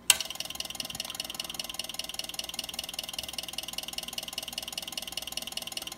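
DX Engineering CC-4SQR four-square antenna controller running its power-on self-test exercise: a rapid, even clicking buzz that starts abruptly at switch-on and cuts off suddenly near the end.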